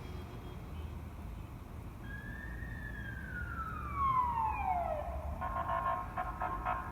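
Electronic siren: one long tone falling in pitch over about three seconds, then a fast pulsing tone from about five seconds in.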